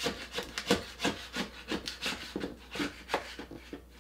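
Old wooden backsplash board being pried off the wall with a crowbar: a quick, irregular series of short wooden scrapes and creaks, about three a second.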